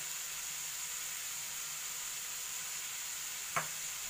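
Minced meat, onion, grated carrot and freshly added shredded cabbage sizzling steadily as they fry in oil in a non-stick frying pan. One sharp click comes about three and a half seconds in.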